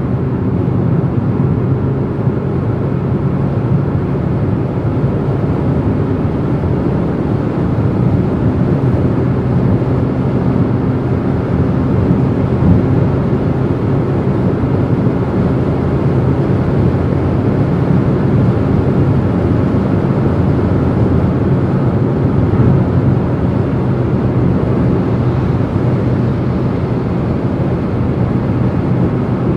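Car cruising at Autobahn speed: steady road and wind noise with a low, even hum underneath.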